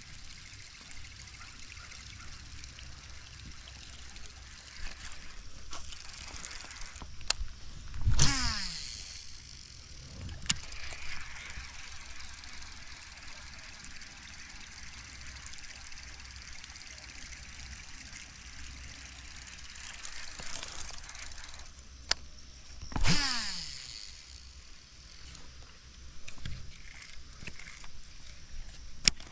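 Two casts with a fishing rod and reel, about fifteen seconds apart: each a sudden whoosh followed by the reel's spool whirring down in pitch as line pays out. Faint steady background between the casts.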